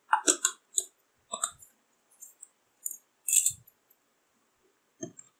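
Small ceramic bowls clinking and tapping against a blender jar as the last of the powdered milk and sugar are tipped in: a string of short clicks and clatters, loudest near the start and about three seconds in.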